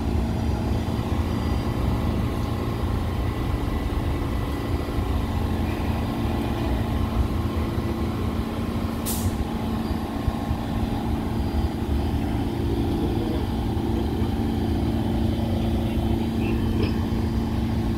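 A New York City Subway R46 train standing with its doors open, idling in a steady low hum with a few fixed tones. A single sharp click comes about halfway through.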